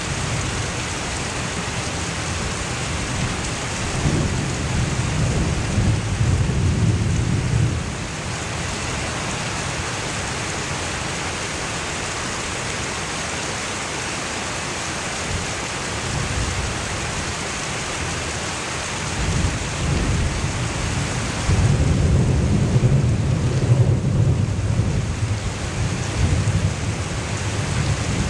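Heavy rain pouring steadily during a thunderstorm, with thunder rumbling twice: a few seconds in, and again, louder and longer, from about two-thirds of the way through to the end.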